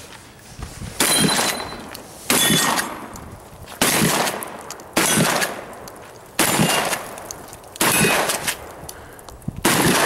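Seven gunshots fired at a steady pace, roughly one every one and a half seconds, each trailing off in a short echo.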